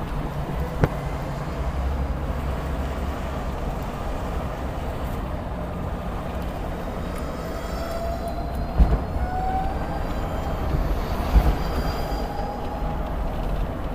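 Commuter Cars Tango, a narrow electric car, driving at freeway speed: steady road and tyre rumble, with the electric drive's whine rising in pitch from about halfway through. Three sharp thumps stand out, the last one near the end.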